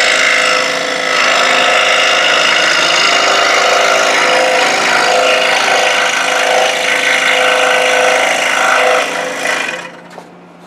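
Scroll saw running and cutting through a sapele board, a steady buzzing saw noise with a brief dip about a second in. It stops near the end, leaving a few small clicks.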